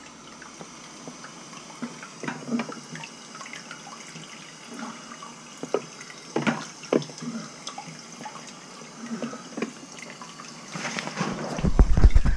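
Water spraying from a handheld shower head onto a tiled shower floor and splashing around the drain, a steady hiss with scattered drips and splashes; the shower is being run as a leak test of the new shower pan. Louder bumps and knocks come in near the end.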